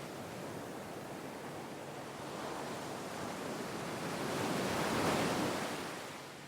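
Sea waves washing on the shore: a steady surf hiss that swells into one wave breaking about five seconds in, then ebbs.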